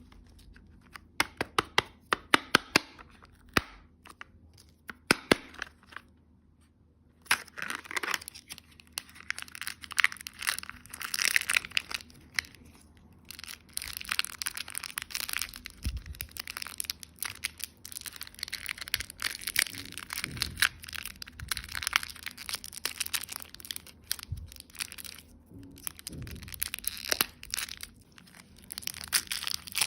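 Candy or surprise-egg packaging being opened: a series of sharp cracks and clicks, then from about seven seconds in continuous tearing and crinkling of wrappers.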